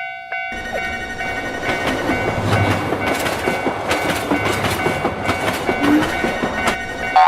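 Train running through a railroad crossing, its wheels clattering over the rail joints in a steady rumble. Steady high tones sound over it.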